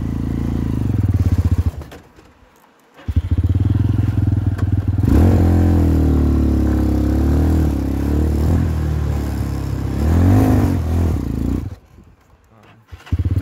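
250cc Jinling ATV engine running under changing throttle, its pitch rising and falling. The sound drops away sharply twice for about a second, once about two seconds in and again near the end.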